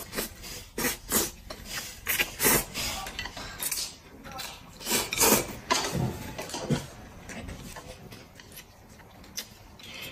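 Eating noises: chopsticks clicking and scraping against a ceramic plate as noodles are picked up and slurped, in quick irregular bursts that thin out in the last few seconds.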